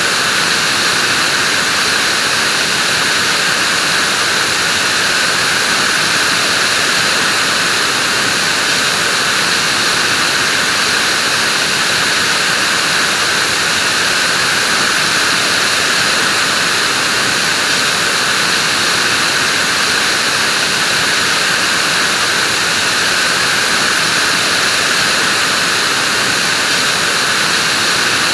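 Vacuum cleaner running steadily, a loud, unchanging whooshing hiss of the motor and air flow with a higher whine above it.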